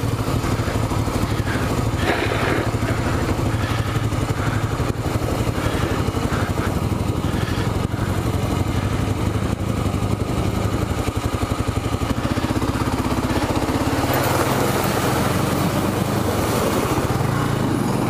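Kawasaki KLR650's single-cylinder engine running steadily as the bike rides a dirt trail into a creek, with water rushing and splashing around the bike over the last few seconds. In the deep water the engine almost smothers out.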